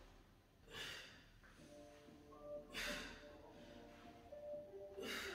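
Three short, forceful exhalations about two seconds apart, one pushed out with each crunch, over quiet background music.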